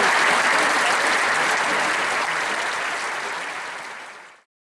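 Concert audience applauding, the clapping fading away steadily and gone a little over four seconds in.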